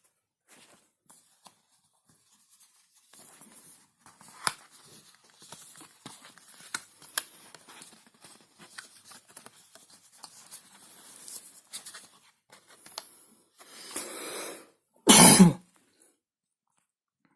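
Handling noise from a smartphone and its packaging: scattered light clicks, taps and rustling. About 14 s in there is a longer rustle, followed by a short, much louder thud-like burst.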